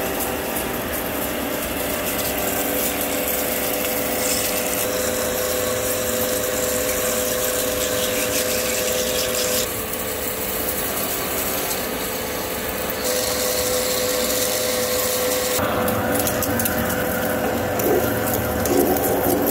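Hafco centre lathe machining a 200 mm high-tensile steel bar: a steady running hum with a constant tone and the hiss of the cut, which changes abruptly several times. Near the end a large drill bores into the centre of the bar, with a few louder knocks.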